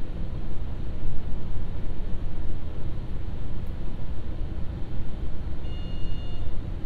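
Inside an Ibara Railway IRT355 diesel railcar under way: a steady low drone of engine and running noise. A brief high tone sounds near the end.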